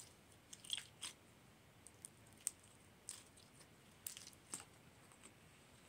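Slime being squished and worked between the fingers for ASMR, giving faint, irregular sticky clicks and crackles.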